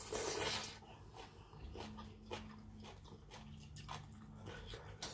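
Close-up eating sounds: a loud noisy burst as a mouthful of rice noodles and raw beef goes into the mouth, then chewing with scattered small wet clicks.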